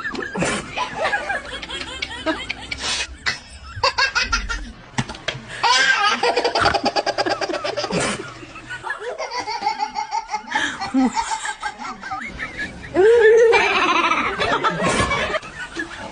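A baby laughing in repeated bursts, the laughter loudest about three seconds before the end.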